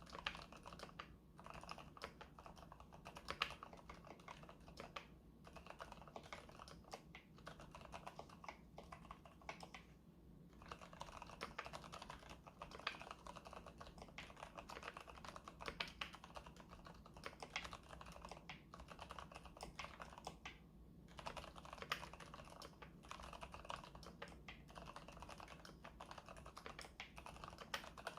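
Keychron K8 Pro tenkeyless mechanical keyboard with silent brown switches being typed on: a fast, continuous stream of muted keystrokes broken by a few short pauses.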